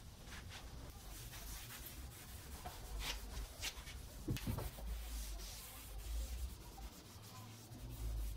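Hand rubbing strokes over a wooden workpiece, an irregular scratchy swishing, with a couple of soft knocks a little past the middle.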